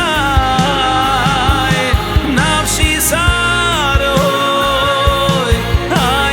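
Jewish pop-rock song playing, with a drum beat and a long-held melody line that slides between notes.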